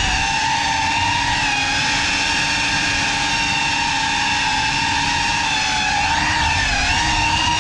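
GEPRC Cinelog35 cinewhoop drone's motors and ducted propellers whining in flight, a steady multi-tone buzz that wavers slightly in pitch near the end as the throttle changes.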